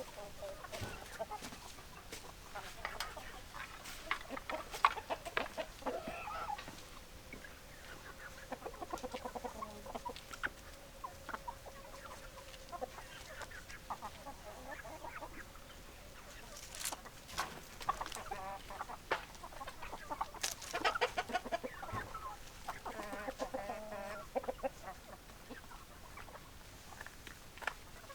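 Chickens clucking: many short clucks and calls from several hens in irregular bursts, busiest about four to six seconds in and again from about seventeen to twenty-four seconds.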